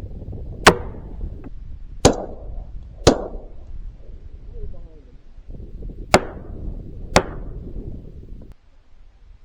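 Five shotgun shots over steady wind noise: three about a second apart, then two more a second apart about three seconds later. Each shot trails off in an echo.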